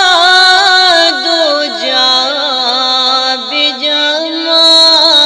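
A naat (Islamic devotional song) sung by a high voice, drawing out a long wavering melismatic line of held notes.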